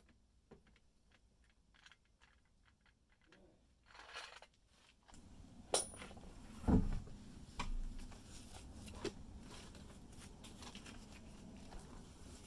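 Faint clicking of a car scissor jack being cranked up by its handle. Then a few sharp metal clinks and one heavy thud, about seven seconds in, as a road wheel is unbolted and pulled off the hub.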